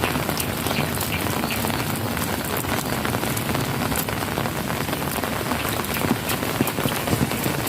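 Steady rain falling, with many single drops ticking sharply on a nearby surface.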